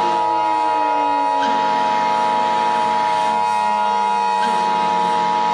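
Emergency Alert System attention signal: two steady tones sounded together, holding unbroken. Lower tones run underneath, one gliding slowly down in pitch.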